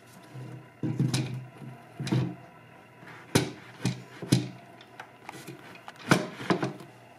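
White laminated cabinet panel being positioned upright on another panel, its cam bolts and wooden dowel pins knocking into their holes: a string of about eight irregular sharp knocks and light thuds.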